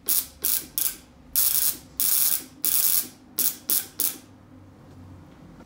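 Induction-coil spark transmitter keyed by hand with a Morse key. The spark gap sparks in nine bursts, three short, three long and three short, spelling SOS in Morse code.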